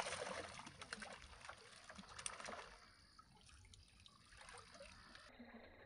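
Pond water trickling and dripping as a bamboo-framed mosquito-net scoop is worked through it, with scattered small drips. Loudest at the start, it dies away to near silence after about three seconds.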